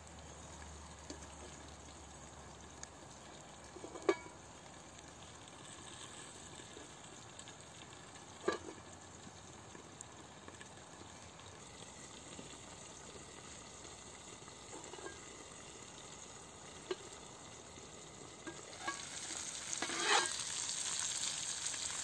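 Sliced potatoes frying in a covered steel pan over a wood fire, a steady low sizzle broken by a few sharp clicks, two of them louder. The sizzle grows louder near the end as the lid is lifted off the pan.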